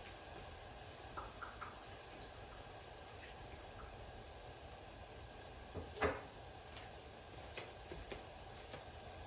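Melted butter and hot sauce heating in a saucepan on a gas stove: a steady low hiss with faint scattered crackles, and one louder pop about six seconds in.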